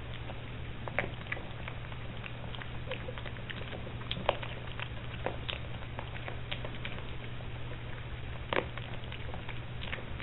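Piglet eating dry feed pellets, with irregular sharp crunches and clicks as it chews and noses through the pile, over a steady low hum.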